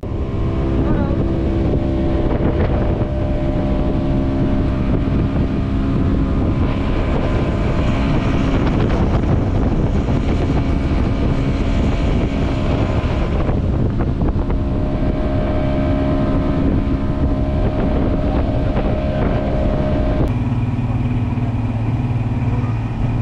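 Boat's outboard motor running steadily under way, with water and wind rushing past. About twenty seconds in, its note drops to a lower, steadier pitch.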